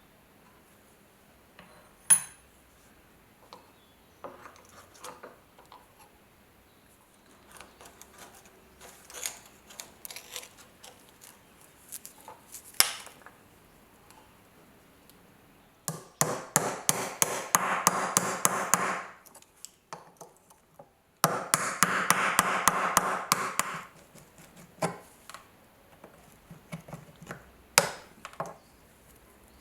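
Hand work on a small rusty folding knife in a workshop: scattered sharp clicks and taps of metal, then two spells of a few seconds each of rapid, dense strokes a little past the middle, the loudest part.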